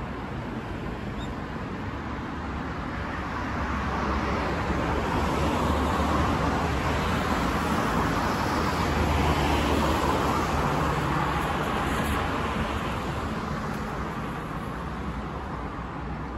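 Road traffic: a passing vehicle's engine and tyre noise swells over a few seconds and fades away again, over a steady traffic hum.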